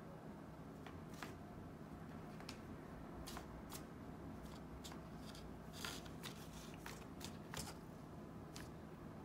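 Faint, irregular light clicks and rustles of a cat pawing and nosing at a paper tiger mask on an elastic headband lying on a wooden floor.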